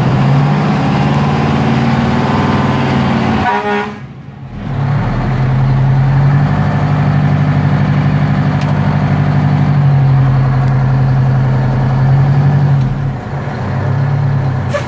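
Detroit Diesel 8V71N two-stroke V8 heard from inside the fire truck's cab, pulling away under throttle. The drone drops off sharply about four seconds in, then pulls again steadily and eases off near the end.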